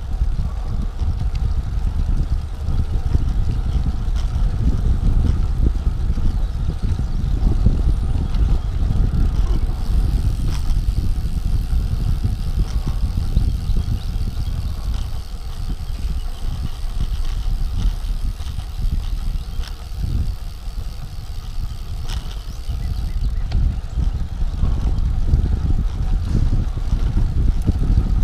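Wind buffeting the microphone of a camera on a road bike moving at about 11 to 13 mph: a steady, gusting low rumble, with a few faint clicks.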